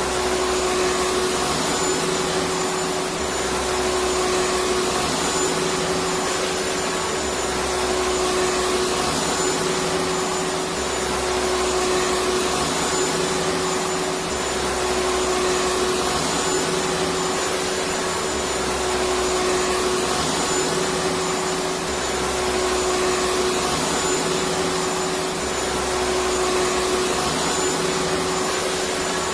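Electric vacuum cleaner motor running steadily: a constant hiss of rushing air with a steady whine. Under it, a low hum comes and goes about every three and a half seconds.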